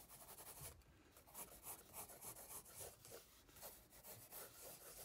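Faint, scratchy scribbling of a drawing tool rubbed quickly back and forth on paper, about three strokes a second, as dark marks are built up vigorously.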